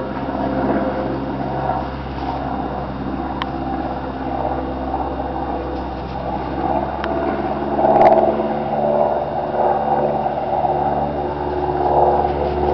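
Steady machine hum holding several fixed pitches, swelling louder for a moment about eight seconds in.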